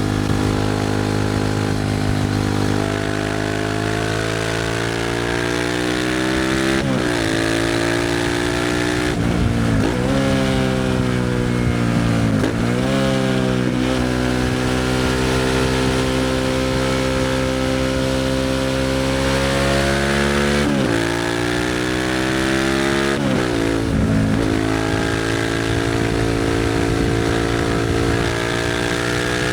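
Suzuki SV650's 645 cc V-twin through a Leo Vince aftermarket exhaust under way. The revs climb through the gears, and the pitch drops sharply at each of about five gear changes, with a steadier, slowly rising stretch midway.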